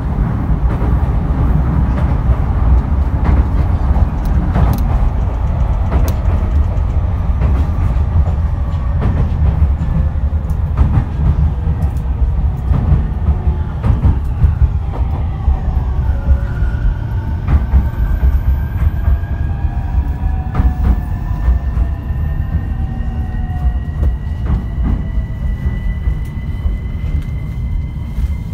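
Running noise heard from inside an E231-series electric train's motor car, with repeated clicks of the wheels over rail joints. From about halfway a whine of the VVVF traction inverter and motors sets in and climbs slowly in pitch as the train gathers speed. This is the original, un-updated inverter nicknamed the 'crash inverter'.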